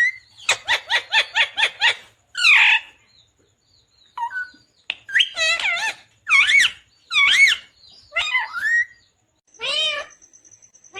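Indian ringneck parakeet calling: a fast run of short chirps, then a harsh screech, then a string of separate warbling calls that waver up and down in pitch.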